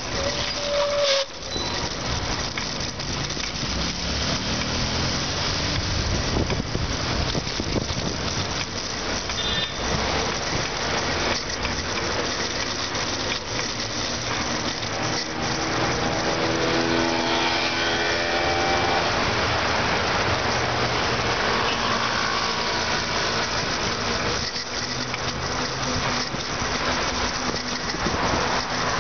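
Steady rush of wind and road noise on a camera riding a bicycle downhill through car traffic, with vehicle engines passing close by. A short pitched tone sounds about a second in, and a longer whine of several stacked tones comes around the middle.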